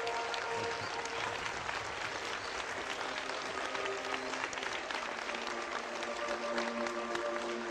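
A large audience of schoolchildren applauding, many hands clapping steadily and densely throughout.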